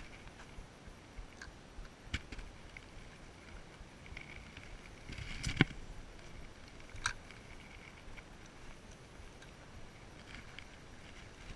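Spinning rod and reel being handled and reeled: faint reel winding noise with a few sharp clicks, the loudest about halfway through.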